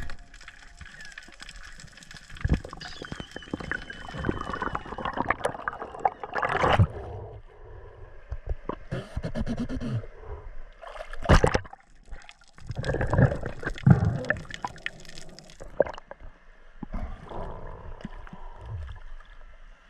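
Water gurgling and sloshing around a camera moving between underwater and the surface, with irregular splashes and a few sharp knocks.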